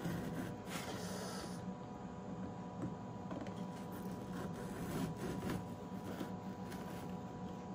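A knife blade scraping and slicing through the sealing tape strip along the edge of a cardboard box, in irregular rubbing strokes, over a steady low hum.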